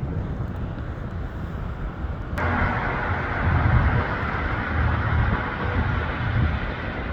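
ATR 72-600 turboprop engines running up for the takeoff roll. A steady rushing noise comes in sharply about two and a half seconds in, over a fluctuating low rumble of wind on the microphone.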